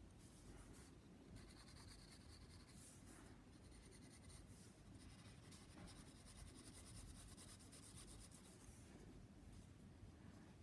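Faint graphite pencil scratching on paper in runs of short shading strokes, with brief pauses between them.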